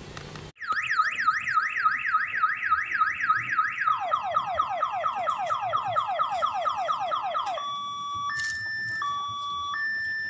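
Electronic multi-tone siren horn of an odong-odong kiddie ride train cycling through its sounds. It starts with a fast rising warble of about four or five sweeps a second, switches to a fast falling yelp about four seconds in, and near eight seconds changes to a slower hi-lo two-tone beep.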